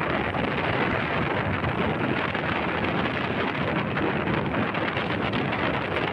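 Steady rushing noise of wind buffeting the microphone on a moving vehicle, dense and even throughout.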